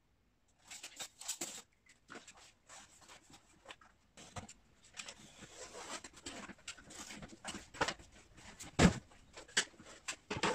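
A hand mat cutter drawn along a straightedge through mat board, a scratchy scraping, amid clicks and knocks from the ruler and board being handled. A sharp thump comes about nine seconds in.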